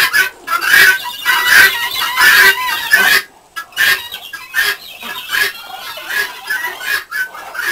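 A flock of domestic guinea fowl calling: harsh, grating cries repeated rapidly and overlapping. The calling breaks off briefly about three seconds in, then carries on a little quieter.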